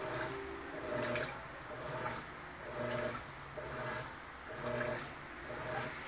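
Electrolux Turbo Economia LTD11 top-load washing machine agitating a quilt load. The motor hums in short strokes about once a second as the agitator swings back and forth, with water swishing and sloshing in the tub. The machine runs very quietly.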